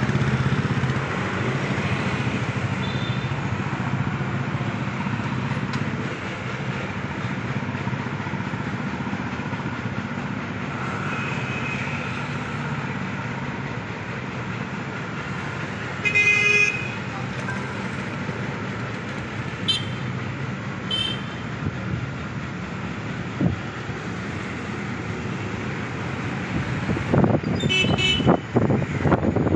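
Steady street traffic noise, with a vehicle horn sounding briefly about halfway through and a few sharp knocks and rattles near the end.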